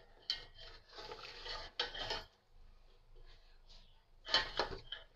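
Metal spatula scraping and knocking against a steel cooking pot as chunks of mutton chops are stirred, in a few irregular strokes, the loudest near the end.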